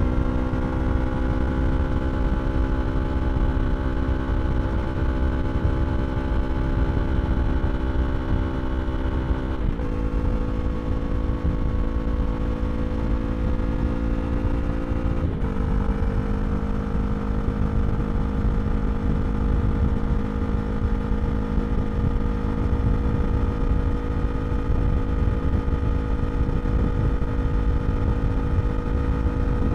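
2023 Yamaha R3's 321 cc parallel-twin engine through an Akrapovič slip-on exhaust, pulling steadily with a slowly rising note. The note drops sharply twice, about ten and fifteen seconds in, as it shifts up a gear. Steady wind rush runs underneath.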